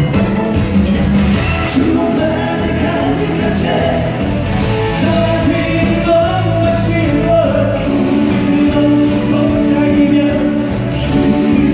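Live upbeat pop music: a band accompaniment with a singer's voice, at full steady loudness.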